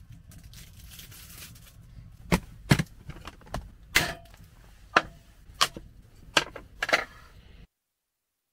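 Sharp wooden knocks and clacks as a bamboo cutting board and other camping gear are handled and set down on a wooden slat table, about nine over five seconds, then the sound cuts out abruptly.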